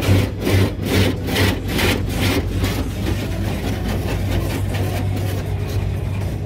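Rotating car-wash brush scrubbing across the car's side window, heard from inside the car: a rhythmic swish of the bristle strips about twice a second, strongest in the first half and easing off after that, over a steady low hum.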